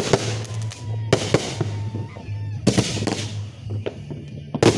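Aerial fireworks going off: a series of sharp bangs, mostly in pairs, with the loudest pair near the end.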